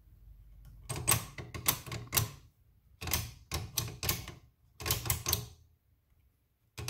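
Mechanical channel tuner of a 1948 Ward Airline television turned by hand with its chassis out of the case, clicking sharply from one channel detent to the next. The clicks come in three quick runs of several clicks each, with another run starting near the end.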